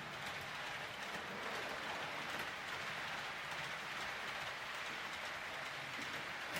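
H0-scale model train running on the layout's track: a steady hiss from its wheels and motor with faint scattered clicks.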